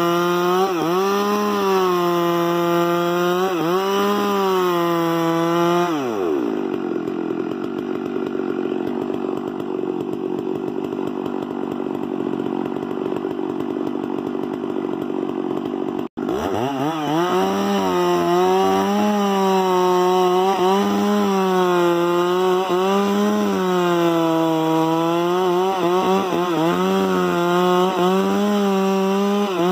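Chainsaw running at high speed, its pitch dipping and recovering every second or two as it works through wood. About six seconds in the engine winds down to a lower running sound. After a sudden brief break about sixteen seconds in, it revs back up to full speed and keeps wavering under load.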